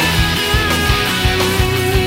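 Background rock music: electric guitar notes over a steady drum beat.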